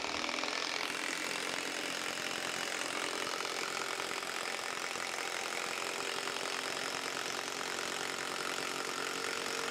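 Milwaukee M12 Fuel Stubby impact wrench, fitted with a quarter-inch hex collet, hammering steadily as it drives a long screw into dense hardwood end grain: a fast, even impact rattle over the motor's hum. The motor sounds slow.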